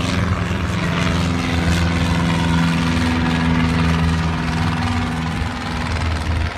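A large engine running steadily close by, a low, even hum.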